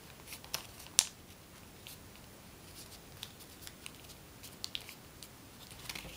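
A sheet of origami paper crackling and rustling as it is folded and creased by hand: scattered light crinkles and ticks, with one sharper snap about a second in.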